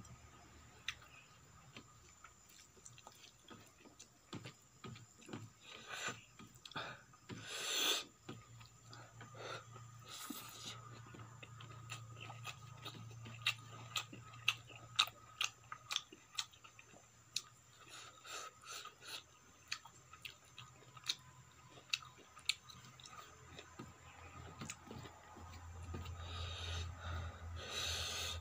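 Close-miked eating by hand: chewing and many sharp, irregular wet mouth clicks, with fingers mixing rice and cabbage-pea sabji on a steel plate. Louder noisy bursts come about seven to eight seconds in and again near the end.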